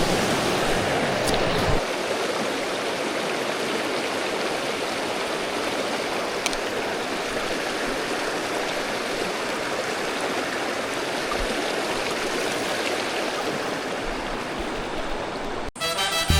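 River water rushing steadily. It cuts off suddenly near the end, where music begins.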